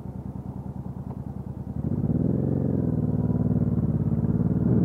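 Honda NT700V's 680 cc V-twin engine heard from the bike: it runs low and pulsing at low revs, then gets louder about two seconds in as it pulls away, its pitch rising and then settling.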